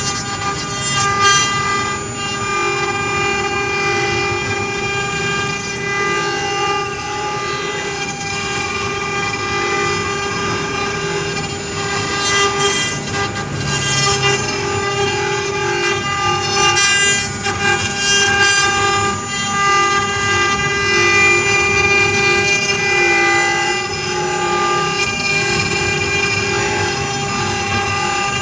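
CNC wood-carving router running, its spindle and drives giving a steady high whine of several held tones, with bursts of rougher cutting noise as the bit works the wood.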